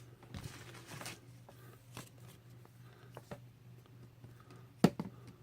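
Quiet handling of trading cards: faint rustling and light clicks, with one sharp click near the end.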